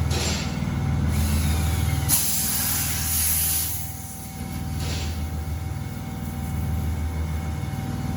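Steady low hum of tire-shop machinery, broken by bursts of compressed-air hiss: a short one at the start, a long loud one from about two seconds in lasting nearly two seconds, and another short one about five seconds in.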